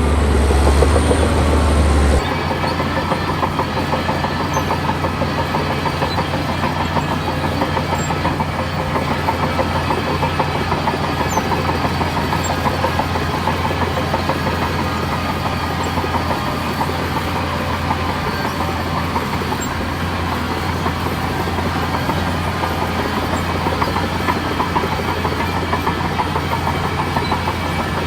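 Heavy diesel earthmoving machinery running steadily under load, with a deep low hum. The sound changes abruptly about two seconds in and then holds steady.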